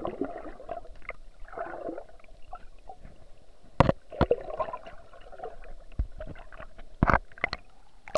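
Seawater sloshing and gurgling, with several sharp knocks, while a caught sea bass is released back into the water.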